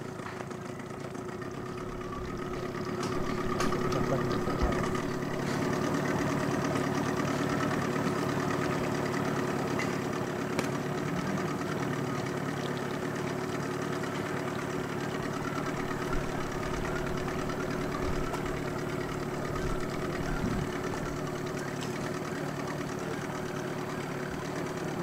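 Small outboard motor running steadily, a continuous engine hum that gets a little louder about two to four seconds in and then holds steady.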